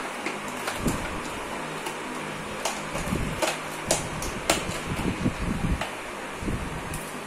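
Scattered clicks and light knocks of plastic parts and wires being handled as an RO water purifier's booster pump is worked loose in its plastic cabinet, over a steady background hiss.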